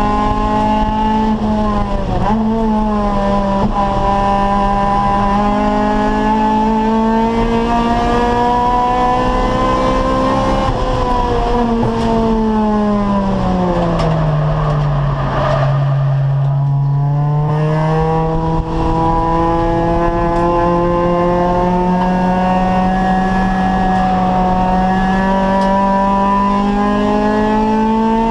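Acura Integra race car's VTEC four-cylinder engine heard from on board at high revs. About halfway through the revs fall smoothly as the car slows for a corner, with a spell of tyre noise. The engine then pulls steadily back up the rev range.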